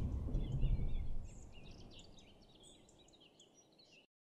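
Birds chirping over a low rumble; the rumble fades out about a second in while the chirps go on, and then all sound cuts off abruptly near the end.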